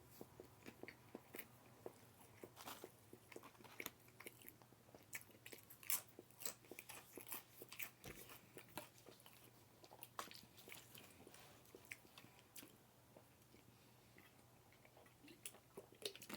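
A person eating: faint, irregular crunching and chewing clicks, many short sharp ones scattered through the stretch.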